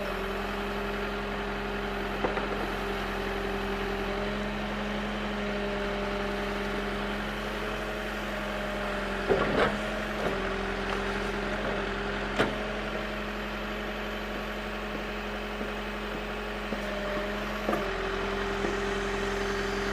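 An engine idling steadily with an even drone, broken by a few sharp knocks or clunks.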